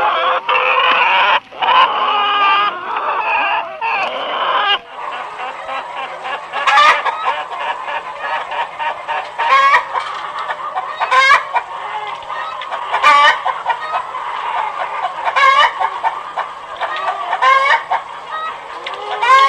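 Chickens clucking, many calls overlapping. About five seconds in the recording changes, and louder calls then stand out about every two seconds over steady clucking.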